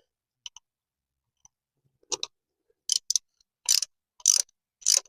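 Socket ratchet clicking in short bursts, one every half second or so from about two seconds in, as it is swung back and forth on a spark plug.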